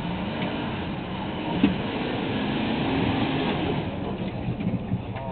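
GMC dually pickup's Duramax turbo-diesel V8 running hard under load while towing a stuck dump truck free. The steady engine drone builds over the first few seconds, with one short knock about a second and a half in.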